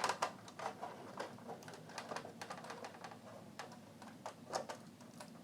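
A small screw being unscrewed from a cassette deck's motor mount with a screwdriver: a run of faint, irregular clicks and ticks.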